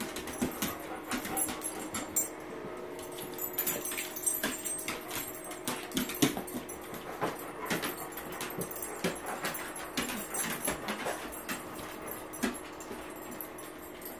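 Labrador retrievers whimpering and whining, eager for their food, with many light clicks of claws on a hardwood floor.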